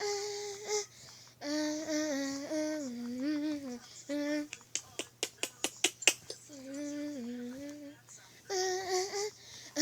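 A voice humming a slow tune in held notes that step up and down, in short phrases, with a quick run of sharp clicks that come faster and faster in the middle.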